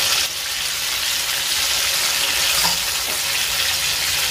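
Hot oil sizzling steadily in a kadhai as wet green gravy is poured onto frying chicken pieces, with a spatula stirring through it.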